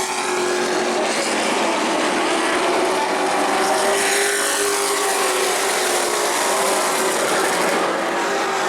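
Race trucks' engines running at speed on an asphalt short track, a steady held engine note with pitch sweeps as trucks pass.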